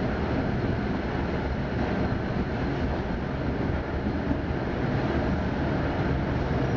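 Tatra T3 tram running along its rails, heard from inside the car: a steady, even rumble of the moving tram.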